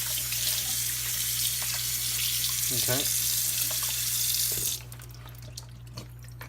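Kitchen tap running steadily into the sink while a raw duck is rinsed under it. The water shuts off abruptly about three-quarters of the way through, leaving a few small drips and knocks.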